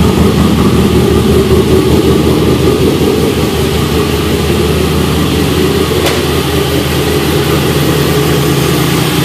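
LS V8 engine in a GMC Syclone idling loudly and steadily through its exhaust with cutouts, on one of its first cold starts. A brief click about six seconds in.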